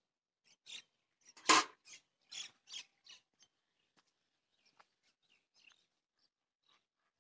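Footsteps on dry, clumpy soil: a few short crunching steps in the first three seconds, with one louder knock about a second and a half in, then only faint scattered ticks.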